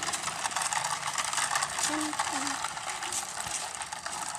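Toy electric car's small motor and plastic gearbox whirring steadily as it drives, with a gritty, rattling gear noise.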